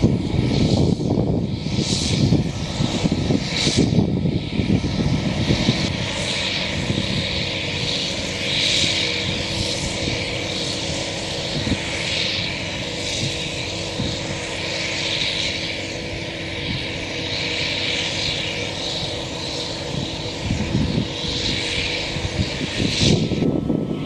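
Claas Jaguar 980 self-propelled forage harvester running under load while chopping standing corn for silage. It makes a steady machine drone with a hum of held tones and a strong hiss over it.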